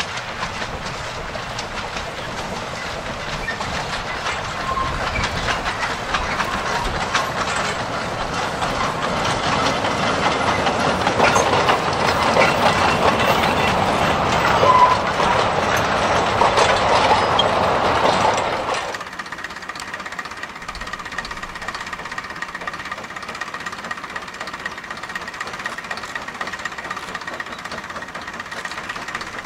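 Narrow-gauge steam train passing at close range, its wheels clattering along the track, growing louder until about two-thirds through. Then the sound cuts off suddenly to a quieter, steady background.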